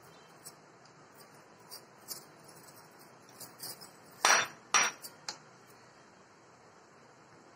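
Light taps and ticks as crushed nuts are sprinkled from a plate into a metal baking tin, then, about four seconds in, two sharp clinks with a short ring of crockery knocking on a glass tabletop, followed by a couple of softer taps as the silicone spatula is taken up.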